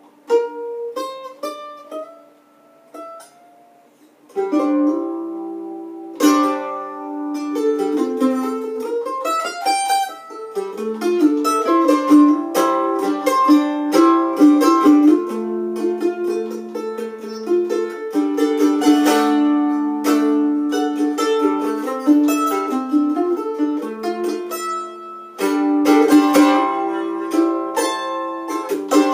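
F-style mandolin played solo with a pick: a few scattered single notes at first, then from about four seconds in a busier run of picked melody and chords.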